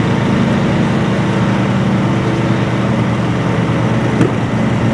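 Engine running steadily, a low drone with a fast, even pulsing.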